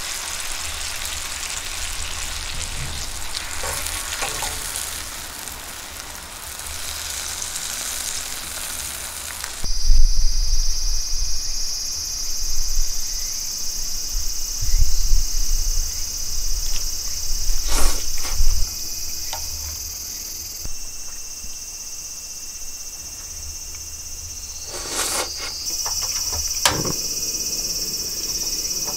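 Thin slices of wagyu beef sizzling and frying in beef fat in an iron pan. About ten seconds in, a steady high insect chirring takes over, with the frying still under it and a few sharp clicks later on.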